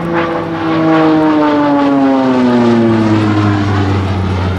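Embraer EMB 312 Tucano turboprop (Pratt & Whitney PT6A engine) flying past low. Its propeller drone drops steadily in pitch as it passes, the Doppler fall of a close fly-by.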